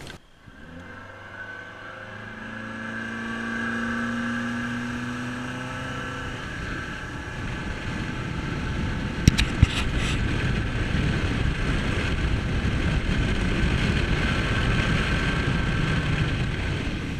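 Boat's outboard motor running and picking up speed, its engine tone giving way to a building rush of water and wind noise. Two sharp knocks about halfway through.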